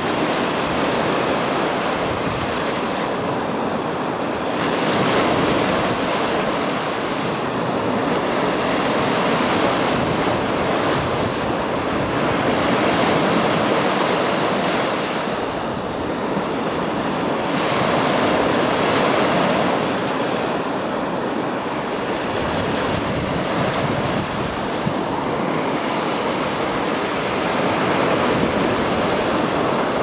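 Small lake waves breaking and washing up a sandy shore among boulders. The surf is continuous and swells and eases every few seconds.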